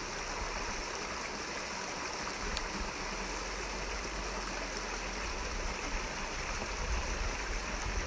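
Shallow rocky creek running over stones: a steady rush of flowing water.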